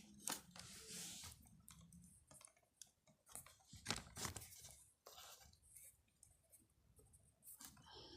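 Faint, scattered clicks and brief scraping of hands handling plastic and metal parts inside a desktop computer while detaching a part from the motherboard.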